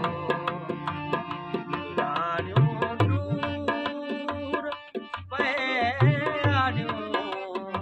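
Live folk music: two harmoniums holding chords, a small two-headed hand drum beating a rhythm, and a man singing with a wavering voice that comes in most strongly a little past the middle.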